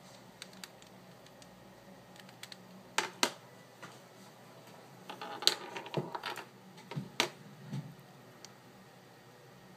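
Irregular plastic clicks and clacks from a hand-built 5x7x7 cuboid twisty puzzle being handled and turned in the hand. There are two loud clacks about three seconds in and a busier run of clicks from about five to seven and a half seconds in.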